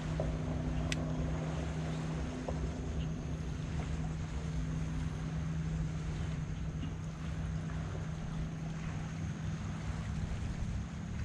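Steady low hum of a bow-mounted electric trolling motor on a bass boat, with wind buffeting the microphone.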